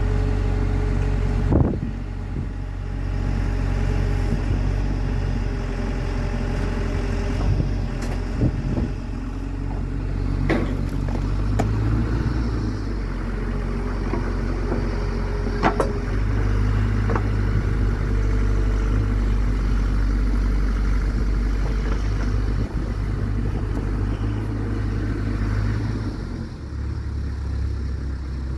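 Mecalac 12MX wheeled excavator's diesel engine running under load as it digs and dumps soil, its note shifting every few seconds as the boom and bucket are worked. A few sharp knocks cut through it.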